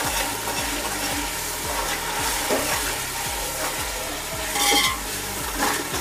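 Onions and green masala paste frying in hot oil in a large metal pot, with a steady sizzle and a metal spatula scraping the pot's bottom as it is stirred round. This is the masala being sautéed (bhuna) after the paste and salt have gone in.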